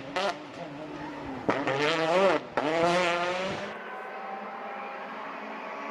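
Rally car engine revving hard, its pitch climbing and dropping sharply with quick gear changes. About two-thirds of the way through, the sound switches to a quieter, duller, steady engine tone.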